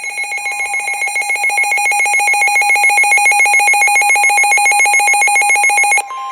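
Loud electronic alert tone trilling rapidly, about ten pulses a second. It cuts off suddenly about six seconds in and gives way to the steady two-tone Emergency Alert System attention signal.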